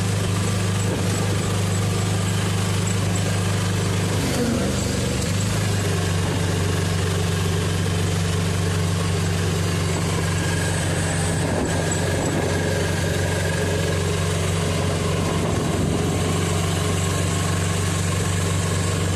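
Vehicle engine running at a steady speed while driving, a constant low hum over road and wind rush. The hum wavers briefly about four seconds in.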